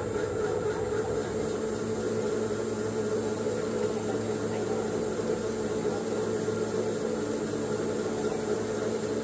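RMT TGB14 CNC pipe threading machine running, a steady hum with a clear mid-pitched tone, heard through the machine's enclosure.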